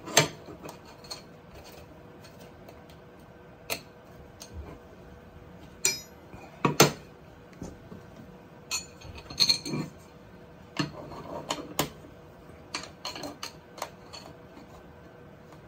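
Irregular clicks, knocks and metallic clinks of aluminium extrusion profiles, screws and an Allen key being handled and fitted onto a 3D printer's metal base.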